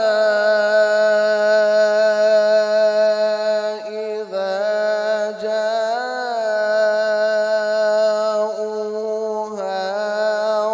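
A male Quran reciter (qari) chanting in the drawn-out melodic tajweed style through a microphone, holding long notes that waver and turn in ornaments. He breaks off briefly for breath about four seconds in and again about nine and a half seconds in.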